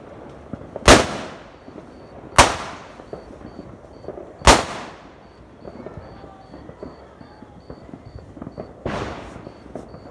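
Fireworks exploding overhead: three loud booms in the first five seconds and a fainter one near the end, each trailing off in an echo.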